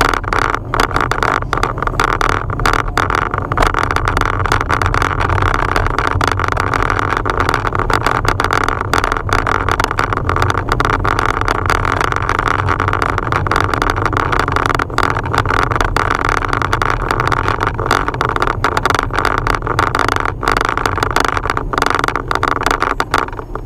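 Steady car rumble with many quick, irregular clicks throughout: a loose part rattling inside a rear-view-mirror dash cam.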